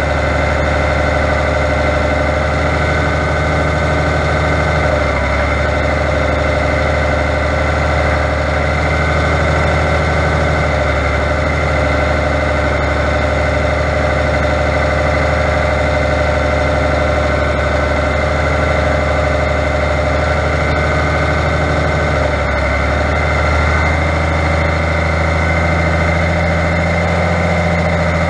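Fiatagri 100.90 tractor's diesel engine running steadily at moderate revs, with small shifts in the engine note about five seconds in and again near the end.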